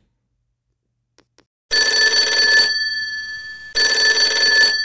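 Telephone ringing: two rings of about a second each, a second apart, starting after a quiet stretch with two faint clicks.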